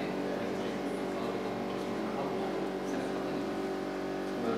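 Indistinct voices talking quietly over a steady electrical hum.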